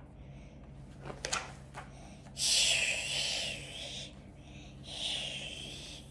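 A person making breathy swishing noises with the mouth to imitate pushing through long wavy grass, the story's 'swishy swashy' sound effect. Two long swishes, the louder about two and a half seconds in and a softer one about five seconds in, with a few short clicks around a second in.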